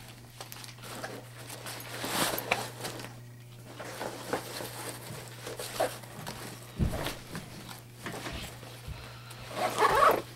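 Nylon backpack being handled, with rustling, clicks and zipper noises as its pockets are opened and gone through, louder about two seconds in and again near the end. A steady low hum runs underneath.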